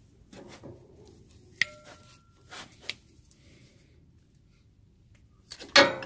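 Steel-backed brake pad clicking and clanking against a Toyota Tundra's four-piston brake caliper and rotor as the old pad is used to press the pistons back into the caliper. There is a sharp ringing metallic click about a second and a half in, a couple of lighter knocks, and a louder ringing clank near the end.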